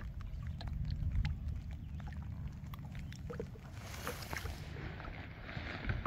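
Water lapping and splashing at the side of a boat as a musky is handled in a landing net, with a steady low rumble and small clicks and knocks, and a brief louder splash about four seconds in.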